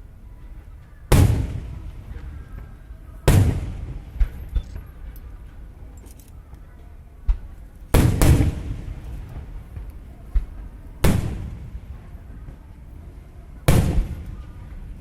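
Aerial firework shells bursting: five loud booms, each trailing off in an echoing rumble, with smaller pops in between. Faint crowd chatter sits underneath.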